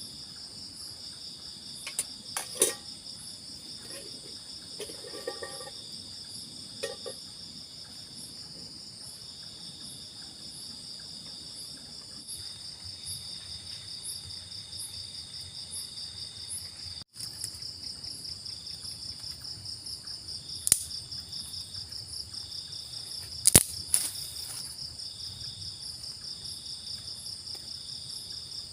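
Insects chirring in a steady, high-pitched trill with a fast pulsing beat, and a second, softer trill starting and stopping. A few sharp clicks or knocks cut through about two and a half seconds in, and twice near the end.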